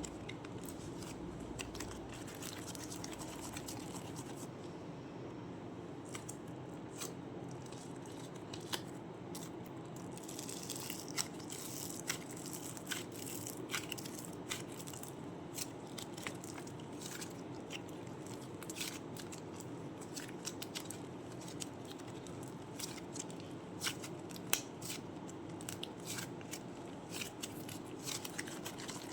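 Crunchy ASMR clay being handled, giving scattered crisp crackles and clicks over a steady low background hum.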